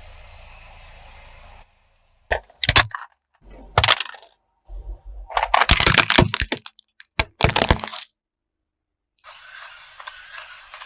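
Objects cracking and breaking as they are crushed under a car's tyre: a run of sharp cracks and crunches lasting about six seconds, densest toward the end, between stretches of faint hiss.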